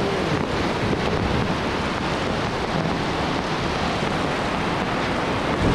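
A stream of rainwater pouring and splashing into a plastic drum that is full to the brim, with rain falling around it: a steady rushing splash.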